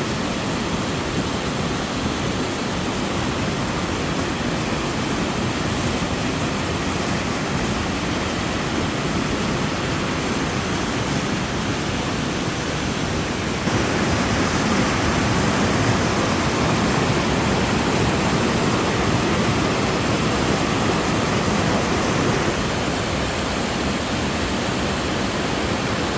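Six-tiered mountain waterfall pouring steadily, a constant rush of falling water that grows louder about halfway through and eases slightly near the end.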